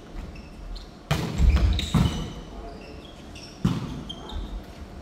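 A volleyball struck three times in passing play: sharp smacks about a second, two seconds and three and a half seconds in, echoing in a large gym hall.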